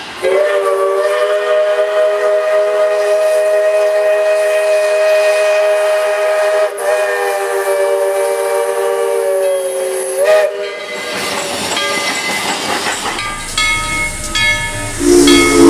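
Steam locomotive whistle blowing one long, steady chord of several tones for about ten seconds, with a brief dip partway through. It cuts off, leaving steam hissing, and music comes in near the end.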